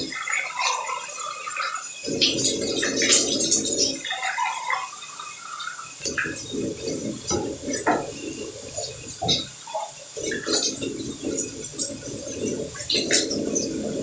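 Water splashing and trickling, with many small droplet plinks over a low gurgling rush that cuts in and out every couple of seconds.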